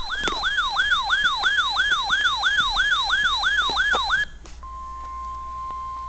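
Electronic siren-style alarm sweeping down in pitch about three times a second, stopping about four seconds in. After a click, the steady 1050 Hz NOAA Weather Radio warning alarm tone begins, the signal that a warning is about to be read.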